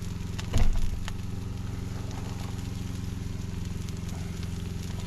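Pork chops sizzling with charcoal crackling on a kamado egg grill, with faint ticks and one loud knock about half a second in, over a steady low hum.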